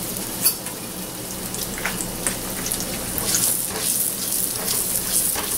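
Hot oil sizzling and crackling around a battered ball of ice cream as it deep-fries in a pan, with many small pops. It grows busier in the second half as a slotted spoon moves in the oil.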